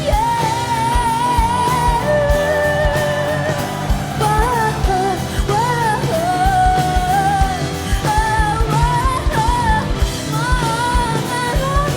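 Live pop-rock band music from drums, bass, guitar and keyboards, with a wavering lead melody of long held notes over a steady kick-drum beat.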